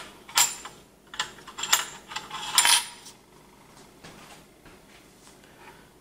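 Small metal clinks and clatter as the steel mounting bracket of a Raijintek Tisis CPU heatsink is set into place between its fin towers: four sharp clinks in the first three seconds, then quiet handling.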